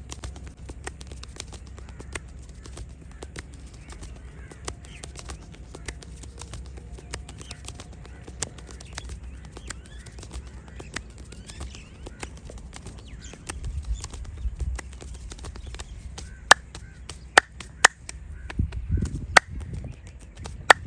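Hands working over a person's head in a massage: a steady patter of small taps and rubbing clicks with some low thumps, then about five loud, sharp cracks in the last five seconds.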